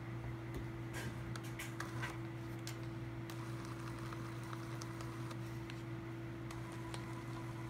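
NEMA17 stepper motor humming steadily as it drives a 3D-printed plastic cycloidal gearbox, with scattered light clicks.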